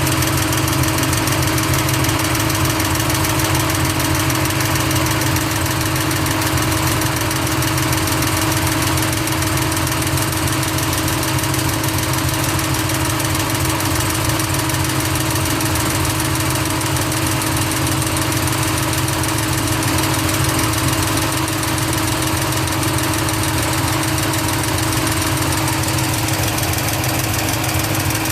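Chevrolet LS7 7.0-litre V8 with a Livernois stage 2C camshaft idling steadily, with a fast, even valvetrain ticking over the engine sound: the lifter noise the owner is showing.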